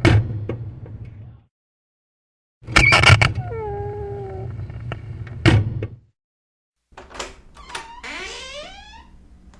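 Squeaky door hinges creaking as a door is swung: a knock at the start, then after a short break a few clicks, a creak of about two seconds holding two pitches, and a knock as it closes. After another short break come two clicks and a shorter creak of several tones that slide in pitch.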